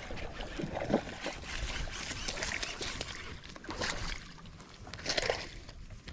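A hooked fish splashing at the water's surface in several irregular bursts as it is reeled in.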